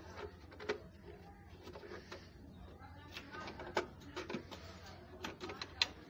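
Light, irregular clicks and knocks of a hand handling a wooden nest box inside a wire birdcage, with a cluster of sharper clicks near the end.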